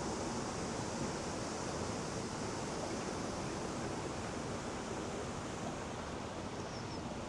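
Steady, even rushing outdoor background noise, with a couple of faint bird chirps near the end.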